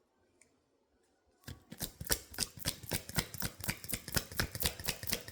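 A deck of tarot cards being shuffled by hand: a quick, irregular run of crisp card clicks and slaps, several a second, starting about a second and a half in after near silence.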